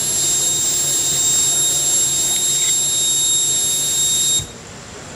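Harsh electronic noise from a hand-built circuit-board instrument: a dense, steady hiss with high whistles held over it and a low hum underneath. It cuts off suddenly about four seconds in, leaving a much quieter hiss.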